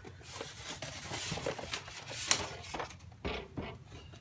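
Styrofoam packing shell rubbing and scraping as it is worked off a 3D printer, with scattered small knocks and one sharp click a little over two seconds in.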